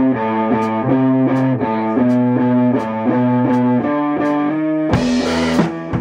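Electric guitar played through a Marshall amplifier, repeating a short chord riff in a steady rhythm, with drums keeping time. A cymbal crash about five seconds in.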